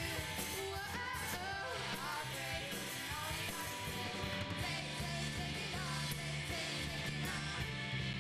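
Rock song with electric guitar, bass and drums, with a sung vocal line.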